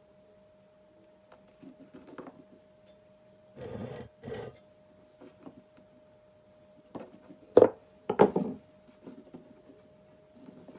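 Short scraping strokes of a metal blade being rubbed on 600-grit abrasive to sharpen it: a pair of strokes about four seconds in and a louder pair near eight seconds, with lighter scrapes between. A faint steady hum runs underneath.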